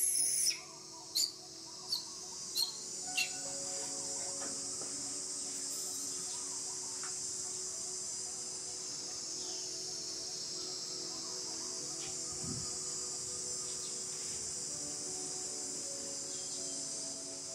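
A young macaque gives four short, high-pitched squeals in quick succession, then a steady, high-pitched insect drone of crickets or cicadas takes over from about four seconds in.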